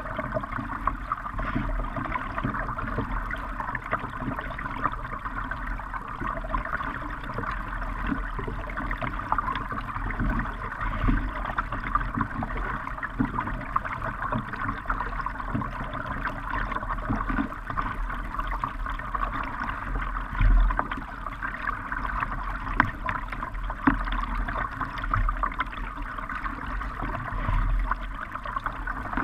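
River water splashing and gurgling against the bow of a moving kayak, a steady rushing noise with scattered low knocks, one louder knock about twenty seconds in.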